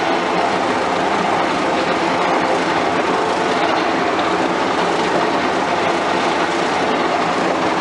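Skid steer engine running steadily while it drives a mower deck converted from PTO drive to a hydraulic motor.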